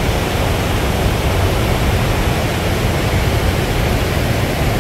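River rapids and a low waterfall rushing over rock ledges: a steady, loud roar of water.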